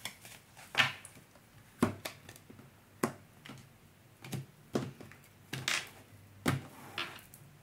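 Tarot cards being handled on a table: a string of light, irregularly spaced taps and flicks as cards are drawn from the deck and laid down.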